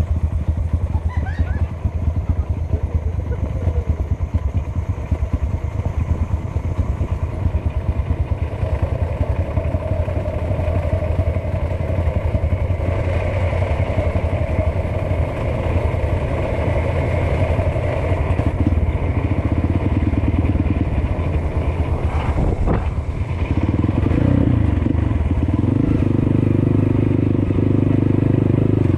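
Small engine running steadily, getting louder over the last five seconds.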